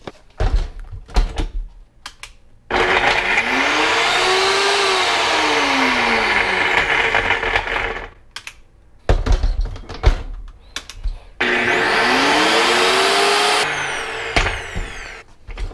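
NutriBullet Rx blender motor running twice, a few seconds each, its pitch rising and then falling, on frozen broccoli, spinach and ginger with no liquid yet: the contents are not blending. Knocks and clunks before and between the two runs.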